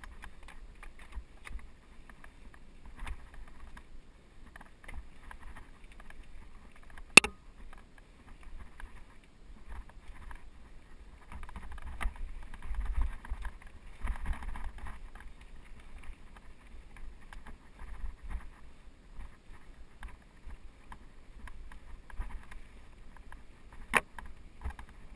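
Mountain bike ridden over rocky dirt singletrack: tyres crunching and the bike rattling over bumps, with a low rumble, and two sharp knocks, one about seven seconds in and one near the end.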